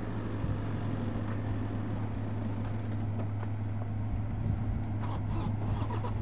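Four-wheel-drive SUV engine running at low, steady revs as it crawls through soft dune sand: a constant low hum that neither rises nor falls.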